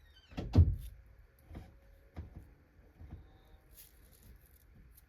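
One loud thunk about half a second in, then three lighter knocks, as the parts of a Hoover Windtunnel upright vacuum are handled while its old belts are taken off.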